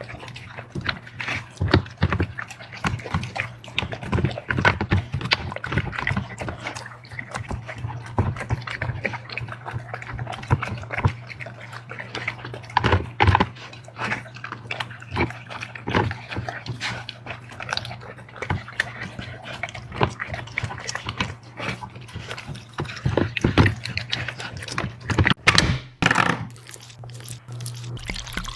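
A dog eating from a bowl: rapid, irregular chewing, smacking and licking sounds, with a steady low hum underneath.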